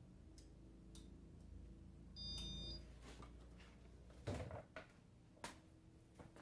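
A short high electronic beep about two seconds in, from the Casablanca InteliTouch speed control as the fan is set to speed 1. It sits over a faint low hum from the fan's Emerson K55 motor. A couple of sharp knocks follow, the loudest about four seconds in.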